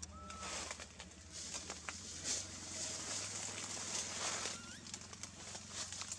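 Leaves and thin branches rustling and snapping in bursts as a monkey climbs and leaps through the foliage, with two short whistled calls, one right at the start and a rising one near the end.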